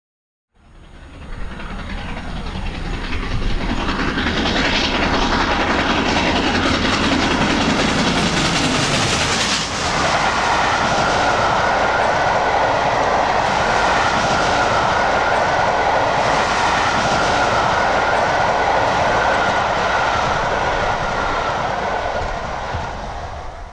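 An LNER A4 class three-cylinder steam locomotive hauling a train at speed: the rush of its exhaust with clickety-clack from the wheels on the rails. It fades in, a falling tone sounds during the first ten seconds, and then the sound changes abruptly to a steady rush with a high, steady whine before fading out at the end.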